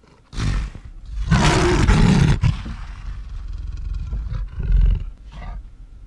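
Recorded lion roaring: a short roar, then a longer, louder one about a second in, trailing off into a few weaker calls.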